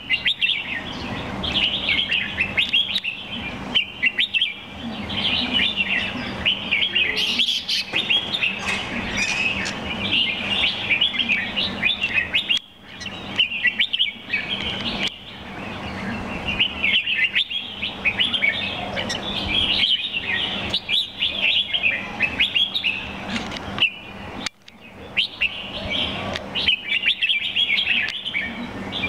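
Pied red-whiskered bulbul singing, a run of quick, bright chirping phrases one after another. The song breaks off briefly about twelve and twenty-four seconds in.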